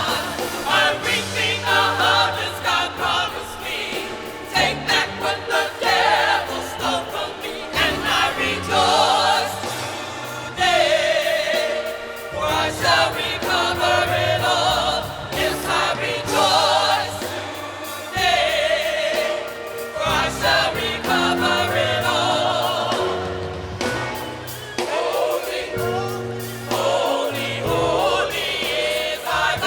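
Small gospel choir singing with accompaniment, voices sustaining notes with strong vibrato.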